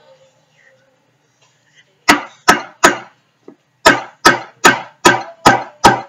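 A spoon knocked hard against the rim of a deodorant tube to shake off thickened homemade deodorant: three sharp knocks, a pause of about a second, then six more at about two and a half a second.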